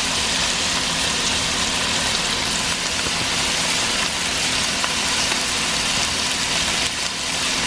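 Cubes of raw pork frying in hot oil in a pan: a steady sizzle, with a low steady hum beneath it.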